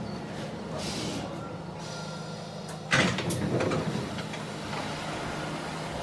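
Inside a subway car: the train runs with a steady low rumble and hum. About three seconds in, a sudden loud burst of noise cuts in as the running hum stops, with a few more clatters just after. Then only a steady air hiss remains.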